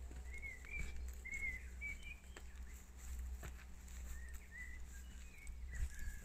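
A songbird singing a run of short chirping notes, once near the start and again in the second half, over a steady low rumble, with a few faint ticks.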